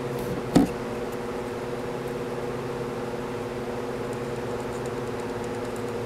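Steady machine hum in a small workshop, with one short knock of a hand tool against the golf cart engine about half a second in.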